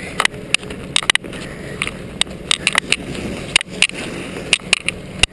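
Boots crunching on packed snow in irregular steps, mixed with the rustling, scraping and knocking of a handheld camera against clothing.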